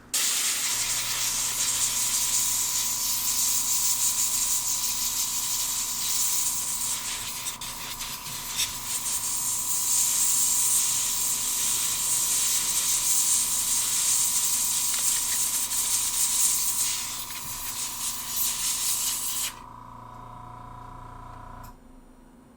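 Flux-cleaner spray from a refillable Rapid Clean sprayer hissing steadily onto a circuit board for about twenty seconds, then cutting off suddenly. A steady hum runs underneath and stops about two seconds after the spray ends.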